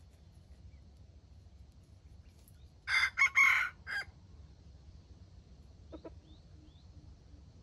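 A red junglefowl rooster crows once about three seconds in: a short crow of about a second, broken into several parts.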